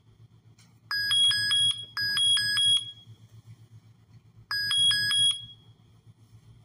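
Software safety-alert tone signalling a PPE violation, a worker without a helmet, played by the detection program. A quick run of about four ringing pulses sounds three times, about a second in, about two seconds in and about four and a half seconds in.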